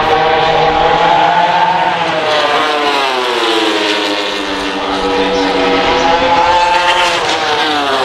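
MotoGP racing motorcycles, 1000cc four-stroke engines at high revs, passing at speed. The engine note climbs, then drops steeply as a bike goes by, and climbs and drops again as another passes near the end.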